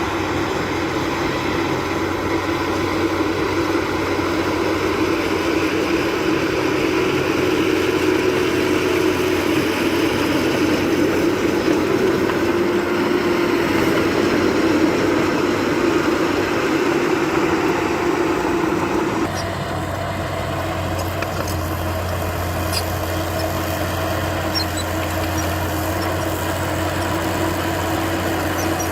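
Diesel engine of heavy earthmoving machinery running steadily. About two-thirds of the way through, it switches abruptly to a different, steadier low engine hum with a few faint clicks.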